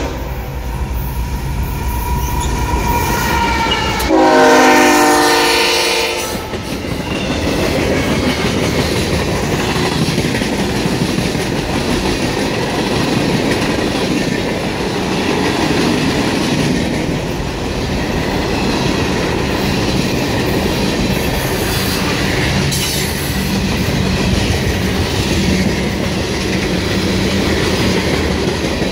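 Freight train with a GE ES44AH locomotive leading: the locomotive's air horn sounds, loudest in a blast of about two seconds some four seconds in. The train then rolls past with a steady rumble and clatter of wheels on the rails.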